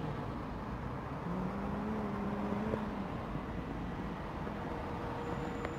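Road traffic on wet streets: a steady wash of traffic noise, with the hum of a passing vehicle's engine between about one and three seconds in and another steady hum near the end.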